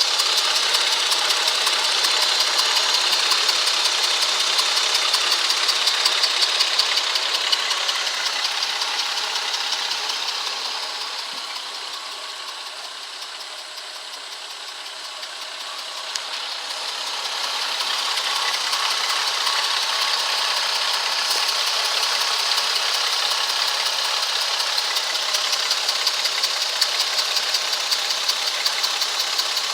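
2004 Ford Freestar engine running at idle with a rapid, even ticking over it: the weird noise that began after new plugs, wires and coil, with the engine throwing no codes and idling a little rough. The sound grows quieter for several seconds midway, then comes back.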